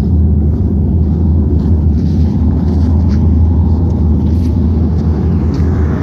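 Loud, steady low rumble filling the air outdoors, a strange sky sound which the local government put down to a ruptured gas line about four miles away.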